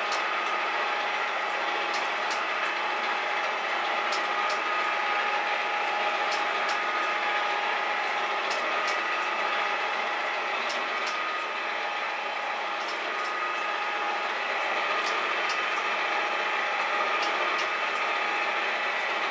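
Metal shaper running steadily, its ram stroking the cutting tool across a metal roller, with a pair of sharp clicks about every two seconds on each stroke.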